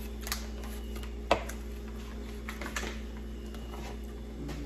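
Scattered light clicks and taps of small objects being handled, with one sharper knock about a second in, over a steady electrical hum.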